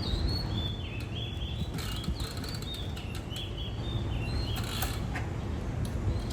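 Small birds chirping over and over in quick, short high notes, over a steady low rumble, with a few brief clicks.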